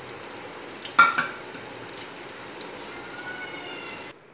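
Battered chicken pakoras deep-frying in hot oil over a medium flame, a steady sizzle. A brief high-pitched sound rises over it about a second in, and the sizzle cuts off suddenly just before the end.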